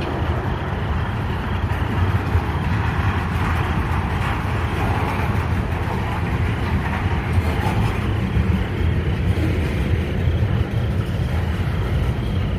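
Freight train cars, tank cars giving way to gondolas, rolling past on the rails: a steady rumble of steel wheels on track.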